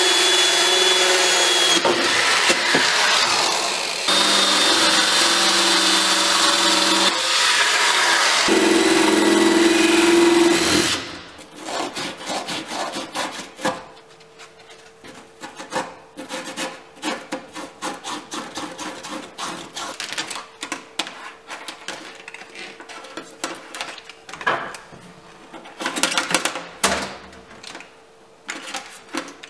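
Corded drill with a hole saw cutting a hole through a fiberglass sailboat cockpit wall, running in a few runs with its pitch shifting between them. It stops about eleven seconds in, and light scraping and handling clicks follow.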